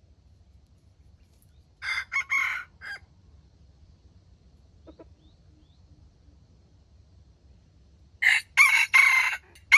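Decoy junglefowl rooster (wild chicken) crowing twice: a short, clipped crow about two seconds in, and another near the end.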